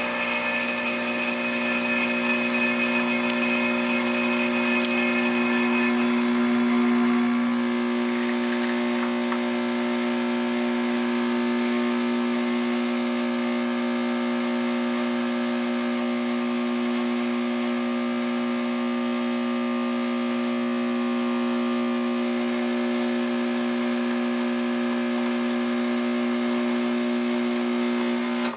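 ECM Classika PID espresso machine's vibratory pump running through a shot of about half a minute: a steady, loud hum whose tone shifts slightly about six or seven seconds in as the pressure builds, stopping suddenly at the end.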